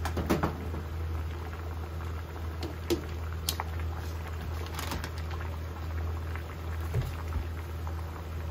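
Spaghetti boiling in water in a deep frying pan, a steady bubbling. A few light knocks of tongs against the pan come near the start.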